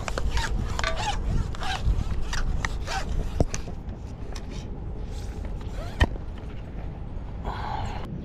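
A fishing rod and single-action drum reel handled close to the microphone: scattered clicks, rubs and creaks, with one sharp knock about six seconds in, over a steady low rumble.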